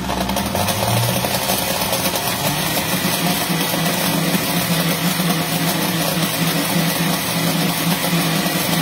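Countertop blender motor running loudly and steadily, whipping a drink mix into a froth; its pitch dips slightly about two and a half seconds in.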